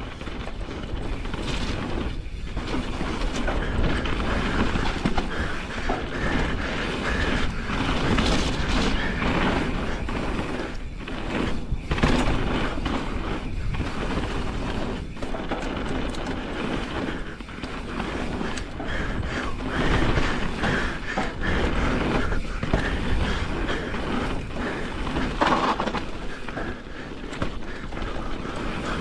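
Pivot Firebird enduro mountain bike rolling down a dirt trail, heard from a chin-mounted camera: a steady rumble of knobby tyres over dirt and stones, with the chain and frame rattling and clattering over bumps.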